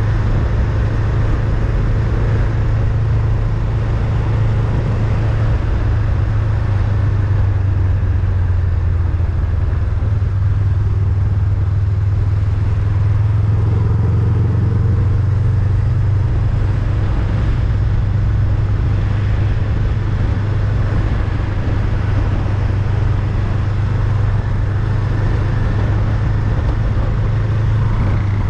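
Honda Rebel 500's parallel-twin engine running steadily while riding, with wind noise on the microphone.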